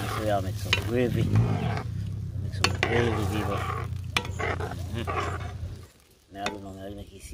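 Metal ladle stirring a pot of vegetable broth, with a sharp clink of ladle on pot every second or two. A steady low hum runs underneath and cuts off about six seconds in.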